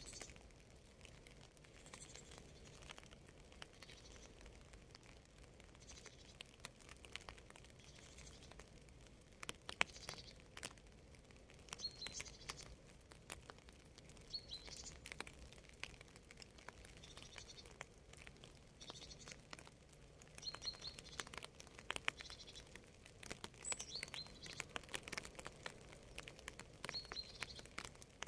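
Faint rain: scattered drops pattering and dripping over a soft hiss. Small birds give short, high chirps every second or two, more often in the second half.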